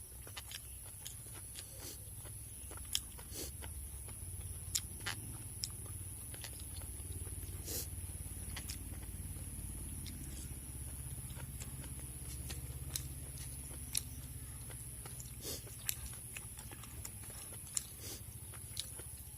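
A person eating rice and curry close to the microphone: chewing with frequent wet mouth smacks and clicks, over a steady low hum.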